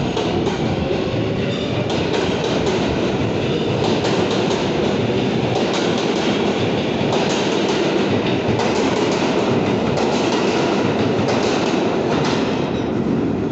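R143 subway train accelerating out of the station past the platform: a loud, steady rumble of steel wheels on rail, with repeated clacks as the wheels run over the rail joints. The noise eases slightly near the end as the last car goes by.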